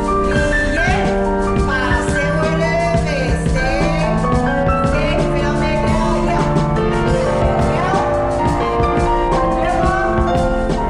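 Music with a steady beat, instruments and a singing voice.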